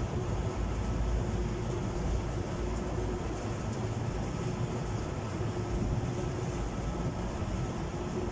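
Motor boat under way: its engine rumbling steadily with a faint constant hum, under the rush of the churning wake and wind.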